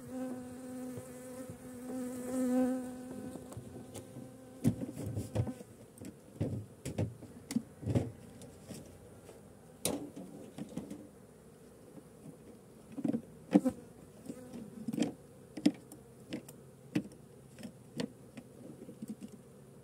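Honey bees buzzing around an open hive, one flying close with a steady hum for the first few seconds. After that, a scatter of irregular short taps and knocks, louder than the buzzing.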